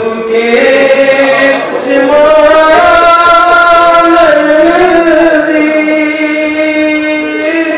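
A man chanting a Muharram mourning lament solo, in long held notes that bend and waver slowly in pitch.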